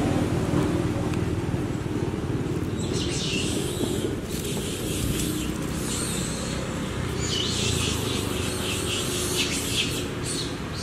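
Birds chirping in quick bursts, a short spell about three seconds in and a longer one from about seven to ten seconds in, over a steady low rumble.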